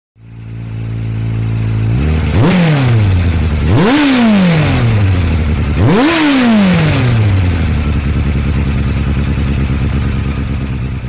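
Motorcycle engine idling, revved three times in quick blips about 2.5, 4 and 6 seconds in, each one rising sharply and falling back to a steady idle. The second and third blips go higher than the first.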